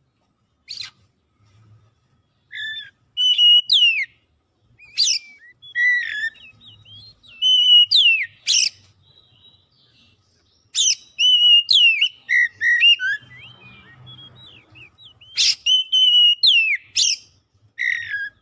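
Oriental magpie-robin singing a vigorous song of clear whistled phrases, with held notes, sharp downward slurs and clicks. A phrase of a held note ending in a falling slur comes back about four times.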